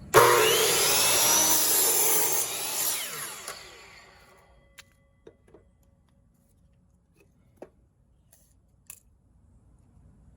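A power tool working wood starts suddenly, runs for about two and a half seconds and winds down over the next second or so, followed by a few scattered light knocks.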